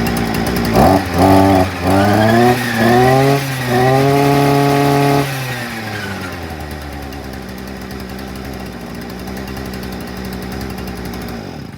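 Hyundai multi-tool's two-stroke engine revved in about five quick blips, the last held at high revs, then dropping back to a steady idle. It now reaches full revs without bogging down after a quarter-turn adjustment of the carburettor mixture screw.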